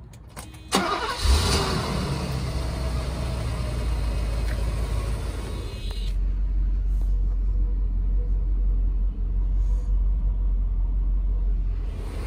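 A 1988 Mercedes-Benz 560SL's 5.5-litre V8 starting up: it catches about a second in and settles into a steady idle.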